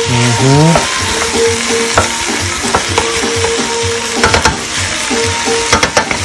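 Seasoned cow foot pieces sizzling as they sear in a stainless steel pot. A wooden spoon stirs them, with a few sharp knocks against the pot around two seconds in, past four seconds and near the end. Background music with a steady beat plays underneath.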